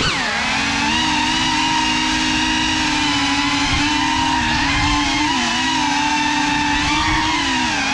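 FPV quadcopter's brushless motors whining steadily, the pitch dropping sharply and recovering right at the start and dipping briefly a few more times with throttle changes.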